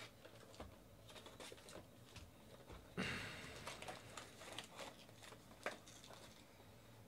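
Faint rustling and crinkling of foil-wrapped trading card packs and a cardboard card box handled by hand, with small scattered clicks. About three seconds in comes a sudden louder scraping rustle of cardboard that fades over about a second.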